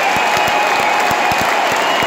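A stadium crowd of thousands applauding and cheering, a dense steady wash of clapping.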